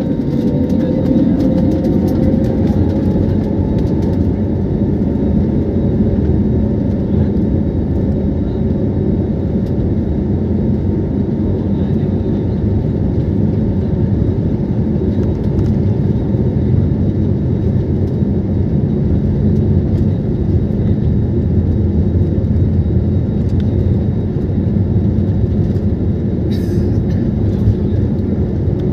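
An airliner's jet engines spooling up to takeoff power and the plane rolling down the runway, heard inside the cabin. It is a steady, loud, low rumble, with a whine rising in pitch over the first few seconds.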